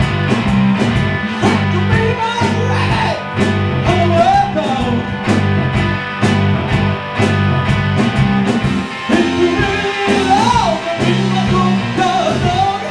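Live rock band playing: electric guitar, bass guitar and drum kit on a steady beat, with a man singing lead in two phrases.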